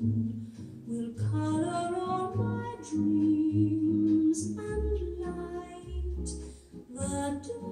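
A recording of a woman singing a slow ballad over band accompaniment with sustained bass notes and light cymbal strokes, played back through JBL DD66000 Everest horn loudspeakers.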